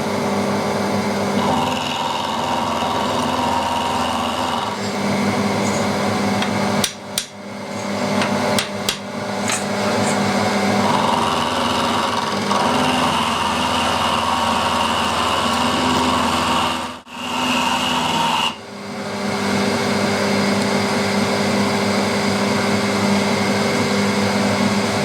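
Milling machine running, an old milling cutter cutting along the edge of half-inch steel plate. A steady machine hum runs throughout, with a higher ringing tone that comes and goes as the cutter bites.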